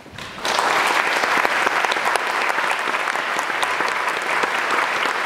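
School assembly audience applauding, with many hands clapping together; the clapping starts suddenly about half a second in and keeps up steadily.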